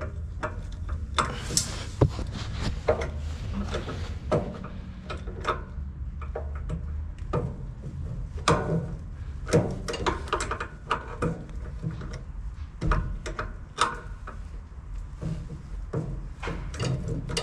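Irregular clicks, taps and scraping of pliers working the cable terminal nut on a small gas engine's starter motor, as the positive battery cable is fastened.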